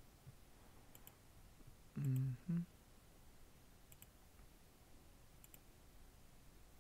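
Faint computer mouse clicks, several coming as quick double-clicks. A brief two-syllable voice sound about two seconds in.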